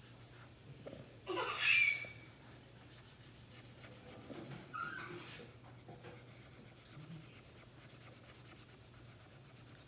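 Marker scribbling on paper as a child colours in, with a short, loud rushing noise about a second and a half in and a softer one around five seconds.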